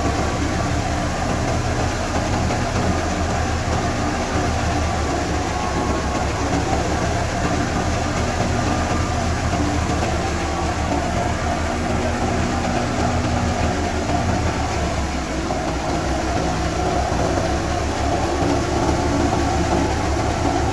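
Wheat thresher and the engine driving it, running steadily at a constant speed.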